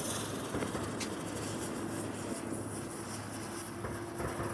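Ground spinner fireworks spinning on the ground with a steady hiss, and a faint steady whine joining about a second and a half in.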